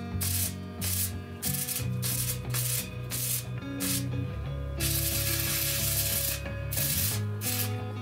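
Stick (MMA) arc welding on a steel square-tube frame: the electrode's arc crackles and hisses in a series of short bursts, with one longer run of about a second and a half a little past the middle.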